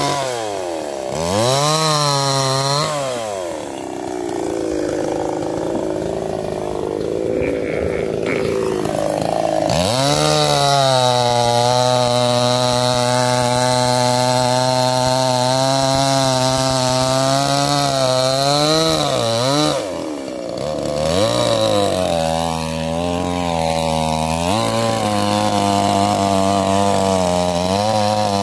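Small two-stroke chainsaw running, its engine revving up and down several times, then held at high revs for about ten seconds while the chain cuts through a log. It then drops back and is revved in short repeated swells near the end.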